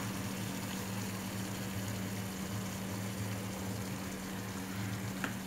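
Chicken korma gravy simmering in a pan, with fresh cream sitting on top: a soft, even bubbling over a steady low hum, with one small tick near the end.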